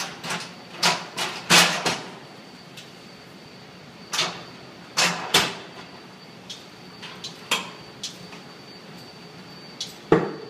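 Hand pallet jack being pumped and steered under a heavy crate: irregular metallic clunks and clicks from the handle and pump, a quick cluster in the first two seconds, then scattered single knocks, with a strong one near the end.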